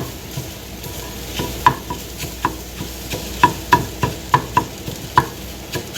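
Eggs sizzling in a frying pan while a utensil chops and stirs them into small pieces, knocking against the pan in irregular taps, about two a second, each with a short ring.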